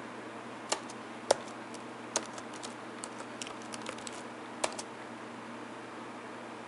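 Computer keyboard keys clicking in an irregular run of about a dozen presses over some four seconds as a phone number is typed, then stopping.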